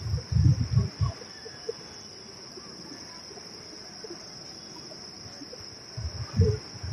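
Crickets chirring in a steady high drone, with short low rumbles near the start and again near the end.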